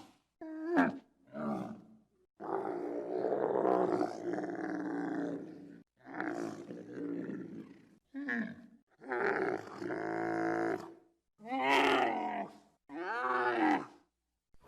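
Giraffe calls: a series of about eight separate drawn-out pitched calls that bend in pitch, with a long one around the third second, each separated by short silences.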